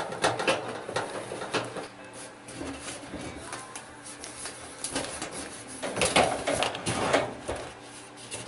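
Hand work on sheet metal: clicks and scrapes of a screwdriver driving screws into a galvanized trash-can lid, then knocks and scraping as a stovepipe elbow is fitted onto the lid. The loudest clattering comes about six to seven seconds in.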